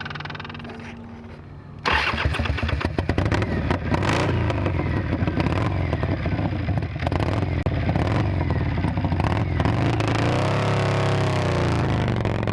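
Confederate Wraith prototype motorcycle's V-twin engine starting: a quieter whir for about two seconds, then the engine catches suddenly and runs loudly with uneven revs. Near the end its pitch dips and rises again as it is revved.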